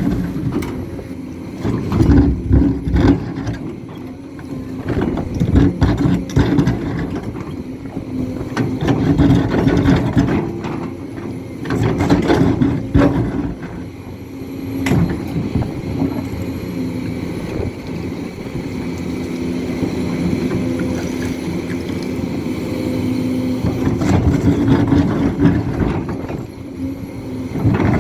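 A Hidromek HMK 500LC 50-tonne excavator's diesel engine running and working hard, its load swelling and easing every few seconds as it digs. Scattered knocks and clatter come through over it.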